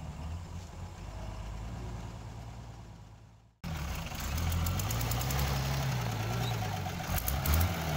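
Old army vehicle engines running. A Shaktiman truck's engine hums low and steady, growing fainter. After a sudden cut partway through it is closer and louder, with a Shaktiman truck and a WWII-era jeep running and an engine revving up and back down.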